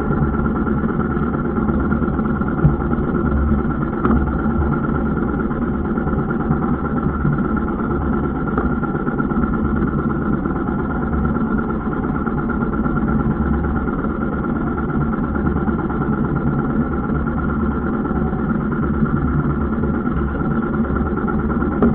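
Boat engine running steadily.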